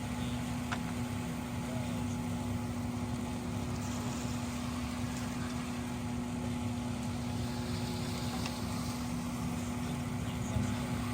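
An engine running steadily, giving a constant low hum and rumble that never changes.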